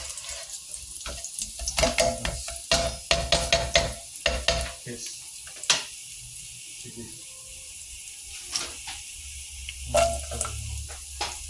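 Chopped garlic sizzling in hot oil in a nonstick pot, a steady light hiss broken by many sharp clicks and knocks, most of them in the first half. Near the end chopped onion is dropped into the pot.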